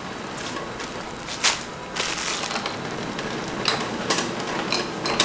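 Butcher's knife work on raw beef: cutting and scraping meat off the bone, with scattered sharp knocks and clicks of the knife and meat against the board.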